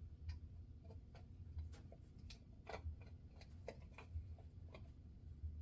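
Faint, irregular small metallic clicks and ticks of a screwdriver turning small screws into the side plate of a Penn 85 fishing reel, over a low steady hum.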